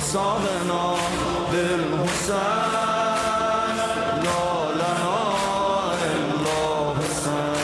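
Shia Muharram noha: a long-held chanted vocal line with many voices, swelling and bending slowly in pitch, over a steady beat.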